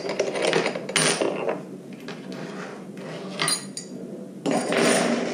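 Hard plastic parts of a Davis Vantage Vue weather station being worked loose and handled on a wooden table: scattered clicks and rattles with louder scrapes about a second in, at three and a half seconds and near the end.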